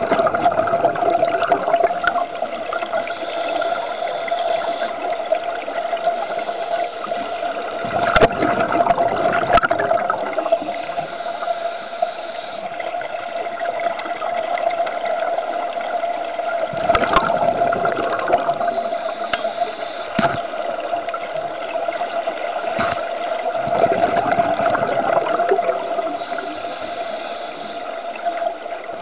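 Muffled underwater sound: a steady hum under a watery hiss, with bubbling surges every several seconds, typical of a scuba diver exhaling through a regulator.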